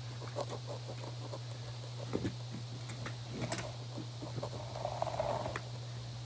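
A black hard-shell guitar case being handled and moved: scattered scrapes, rustles and light knocks, with a brief rustle about five seconds in, over a steady low hum.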